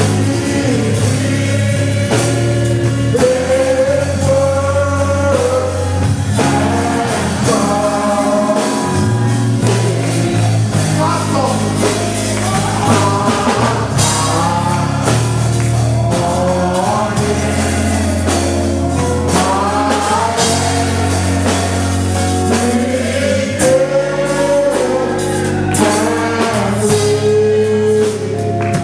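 Live gospel praise-and-worship music: several voices singing together over a band, with a bass line moving in held notes every couple of seconds and a steady drum beat.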